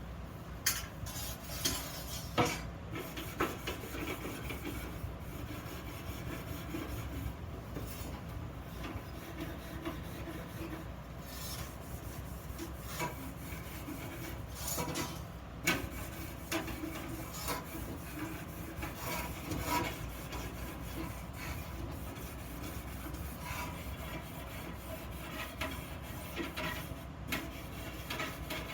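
Hand work on steel parts: irregular scraping and rubbing strokes on metal with scattered sharp clicks and knocks, over a steady low hum.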